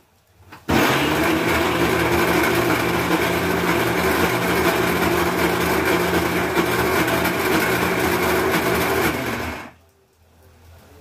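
Electric mixer grinder (mixie) running, grinding roasted peanuts into a coarse chutney. It starts just under a second in, runs steadily, and stops about a second and a half before the end.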